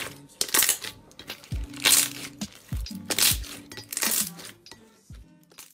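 Thick blue slime squeezed and kneaded by hand, giving a series of wet crackling squelches, one burst every half second or so.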